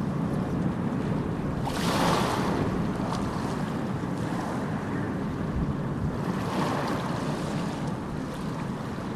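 Sea waves washing against the shore under wind buffeting the microphone, a steady rush with two swells of hiss, about two seconds in and again near the end.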